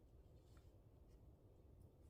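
Near silence: a faint low rumble with a few faint ticks.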